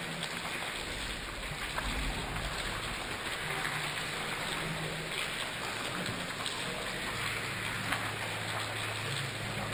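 Steady rain falling on forest foliage.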